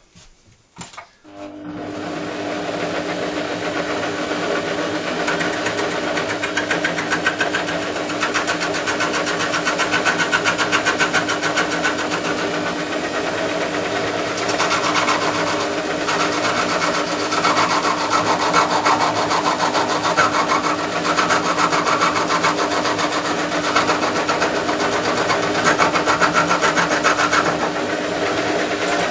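Homemade wood lathe driven by an old cutoff-saw motor: the motor starts about a second and a half in and runs steadily at a held-back speed with a steady hum, because the rough log is still uneven. A chisel held on the tool rest scrapes and cuts the spinning log, the scraping growing louder about halfway through.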